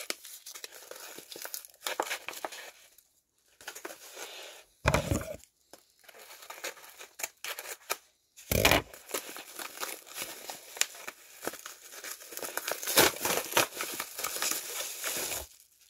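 A brown paper mailer crinkling and rustling as it is handled and cut open with scissors, then a plastic bag crinkling as it is pulled out. Two dull thumps from the handling about five and eight and a half seconds in.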